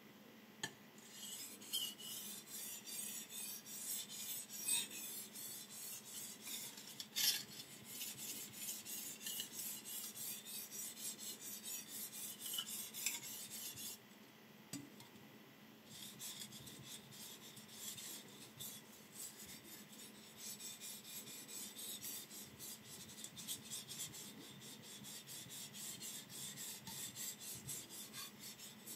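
Steel kitchen knife blade stroked back and forth on a wet whetstone: a rhythmic scraping grind of about two strokes a second, with a short break about halfway through.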